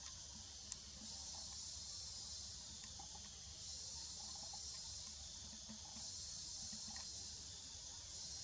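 Forest insects buzzing as a steady high hiss that swells and eases every few seconds, with a single sharp click under a second in.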